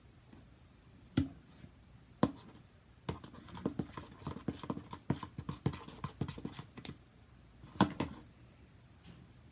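Glue-and-shaving-gel slime squished and kneaded by hand, making sharp wet pops: two single pops, then a run of quick clicking squelches for about four seconds, and a final double pop near the end.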